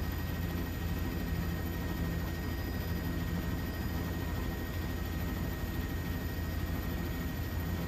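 Steady, unchanging low drone of aircraft engines, with a faint constant high whine over it.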